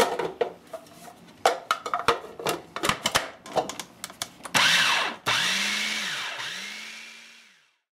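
Plastic clicks and knocks as a food processor is handled, then its motor starts about four and a half seconds in, puréeing cooked sweet potatoes. The motor's pitch rises and dips twice before the sound fades out.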